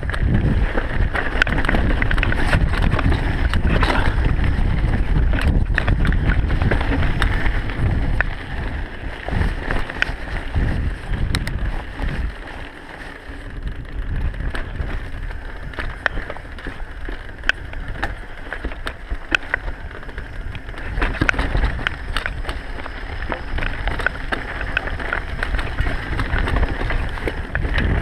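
Mountain bike descending a dirt singletrack: wind buffeting the action camera's microphone over a heavy rumble from the tyres on the trail, with frequent sharp clicks and rattles. The rumble eases for a few seconds about halfway through, then picks up again.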